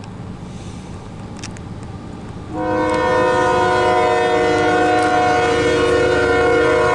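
CSX freight diesel locomotive's air horn starts suddenly about two and a half seconds in and holds one long blast, a chord of several steady tones, over a low rumble.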